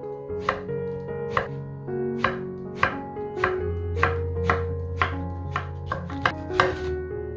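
Kitchen knife slicing eggplant on a wooden cutting board: a steady run of chopping strokes, roughly two a second, each blade striking the board. Background music plays under it.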